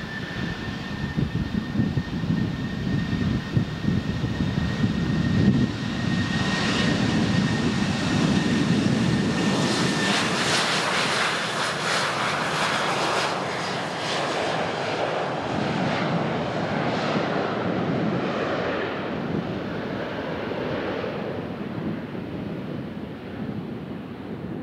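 Boeing 737 business jet's twin turbofan engines taking off: a steady high whine at first, then the engines spool up to take-off power and the jet noise grows loud as the aircraft rolls past about halfway through. The noise then eases and loses its high end as the jet lifts off and moves away.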